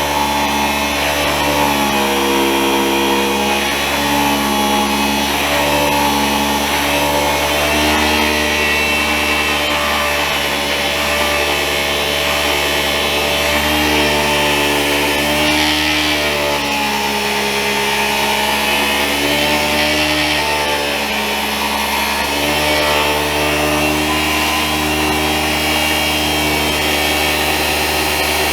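Handheld electric massager running continuously as it is worked over a person's back to loosen the muscles before a chiropractic adjustment. It gives a steady motor hum whose pitch dips and recovers several times.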